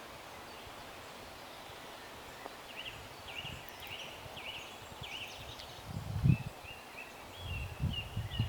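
A woodland bird singing a run of repeated short notes, about two a second, then a quicker series of shorter notes. Low rumbling bursts on the microphone come twice, the louder about six seconds in.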